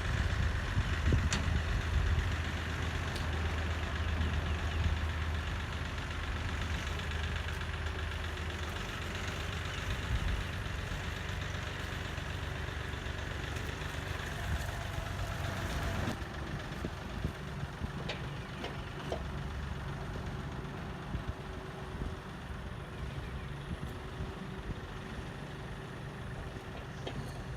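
An engine idling steadily, with a few scattered clicks and knocks over it.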